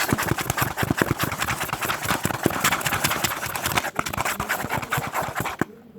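Fast, vigorous stirring of glue and dish detergent in a container, the utensil clicking and scraping against the sides many times a second, whipping the mix toward a froth; the stirring stops abruptly near the end.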